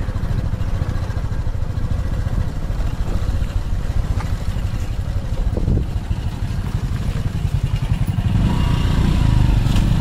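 Motorcycle engine running at low speed close to the microphone, a steady pulsing rumble that grows a little louder about eight seconds in.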